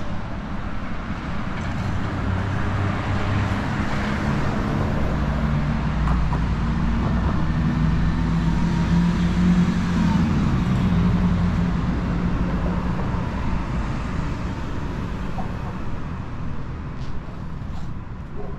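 Street traffic on a city avenue, with a motor vehicle's engine passing close, growing louder to a peak about ten seconds in and then fading.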